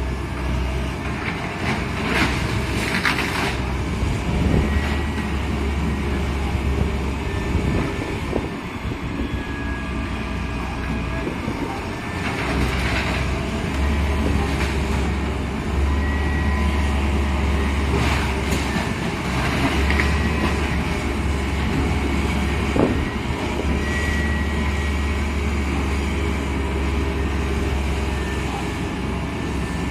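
Heavy diesel demolition machinery running with a deep rumble that surges and eases, with a few sharp crashes and crunches of a building being torn down.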